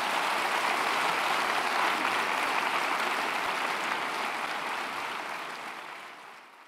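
A large auditorium audience applauding, the clapping steady at first and dying away over the last couple of seconds.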